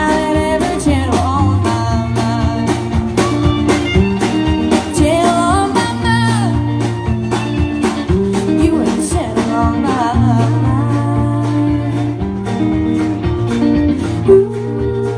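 A band playing live: a singer over guitar, bass notes and a steady drum beat, with one sudden loud hit near the end.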